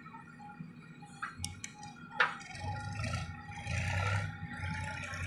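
JCB 3DX backhoe loader working its digging arm: a few sharp clicks and one loud clunk a little after two seconds in, then the diesel engine loads up and grows louder as the bucket lifts a full load of soil out of the pit.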